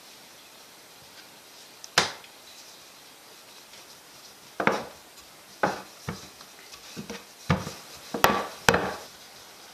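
Wooden rolling pin knocking on a wooden worktop as pizza dough is rolled out: one sharp knock about two seconds in, then a run of about eight irregular knocks in the second half.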